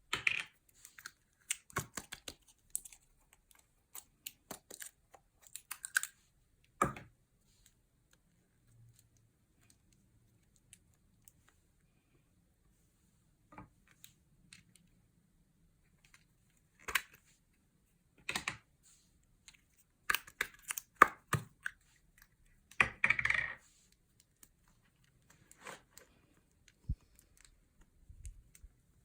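Scattered sharp taps, clicks and short crinkling sounds from hands handling slime-making materials, coming in clusters with quiet gaps. The busiest, loudest run of crinkles and clicks comes about two-thirds of the way through.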